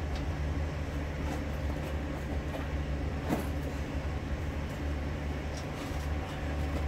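Steady low drone of an idling engine, with a faint click about three seconds in.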